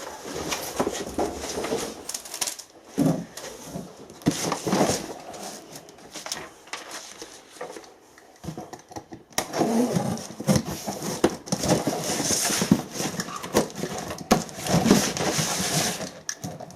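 Packaging being handled and crinkling, with small knocks, as parts of a diesel air heater kit are unpacked. It is quieter for a few seconds in the middle and busier in the second half.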